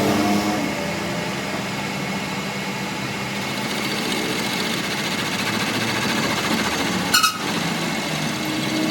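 A workshop machine running steadily with an even mechanical noise, broken by a brief sharp click about seven seconds in.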